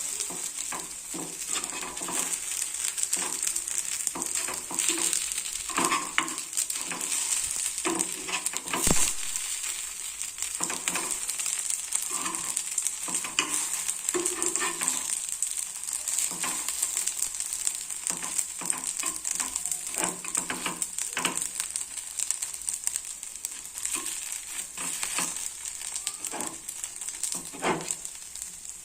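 Paddu (paniyaram) sizzling in oil in a paddu pan as they are turned over one by one, with frequent light knocks and scrapes of the turning utensil against the pan and one sharper knock about nine seconds in.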